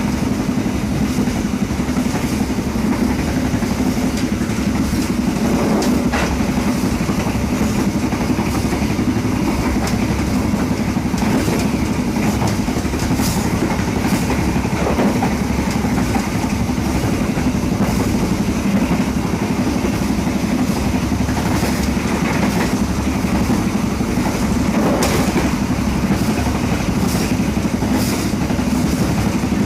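Bogie of a KA Singasari passenger carriage running along the track: a steady rumble with a constant low hum, broken by a few sharp clicks and knocks from the wheels over the rails.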